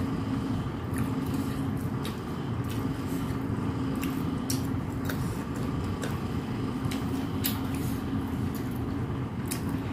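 Eating mouth sounds, scattered short clicks of chewing and lip smacks, over a steady machine hum.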